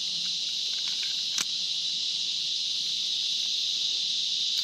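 Steady, high-pitched chorus of insects droning without a break, with a single light click about a second and a half in.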